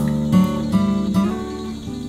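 Background music: an acoustic guitar playing, with several notes or chords struck in turn.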